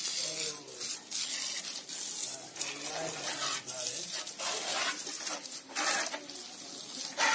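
Water from a garden hose spraying onto a motorcycle's rear wheel and frame: a steady hiss that swells into louder surges every second or so at uneven intervals.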